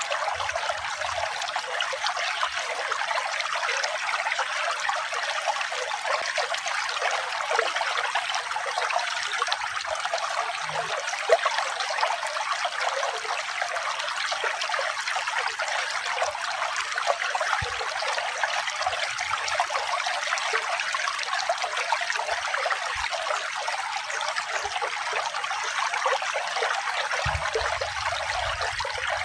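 Running water trickling and splashing steadily, an even hiss with no letup.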